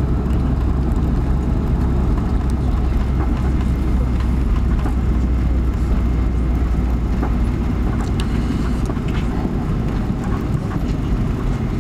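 Airbus A330 cabin noise while taxiing: a steady low rumble from the engines and the wheels rolling over the taxiway. Faint scattered clicks and rattles come in the second half.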